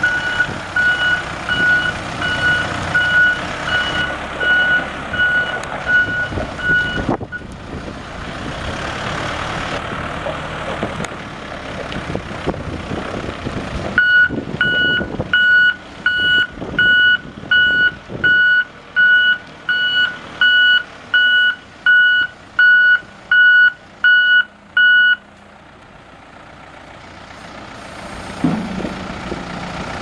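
2003 Volvo BL70 backhoe's reverse alarm beeping, about one and a half beeps a second, a sign that the machine is in reverse. Its Volvo 4.8-litre diesel engine runs underneath. The beeping breaks off for several seconds in the middle, then stops near the end.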